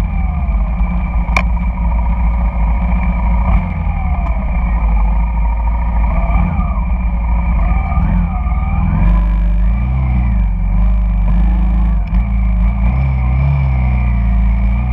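Honda Shadow cruiser's V-twin engine running at low speed in slow, dense traffic, its note rising and falling as the bike moves along, with the engines of the scooters and cars around it. One sharp click about a second and a half in.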